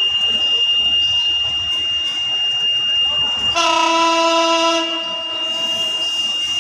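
Horn of an approaching Hyundai Rotem diesel locomotive sounding one blast a little past halfway, lasting about two seconds. A steady high-pitched electronic tone, like a buzzer, runs under it all the way.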